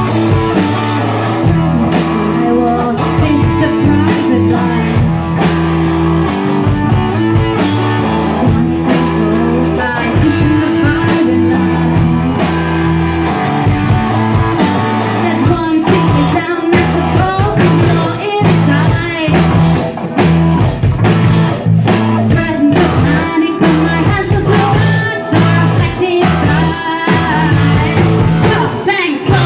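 Live rock band playing loudly: electric guitars and a drum kit, with singing over them.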